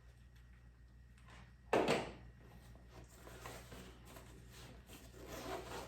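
A small fabric shoulder bag being handled: one short rasp about two seconds in, then faint rustling.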